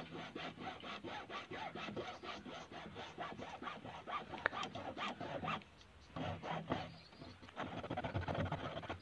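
Hand hacksaw cutting through an old tube-well pipe in rapid, regular back-and-forth strokes. It stops briefly twice, about six and seven seconds in, then starts again.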